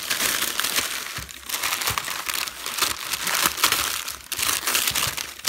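Gold wrapping paper crinkling and rustling as hands pull and tear it off a bottle-shaped gift. The crackling is continuous, with two short lulls.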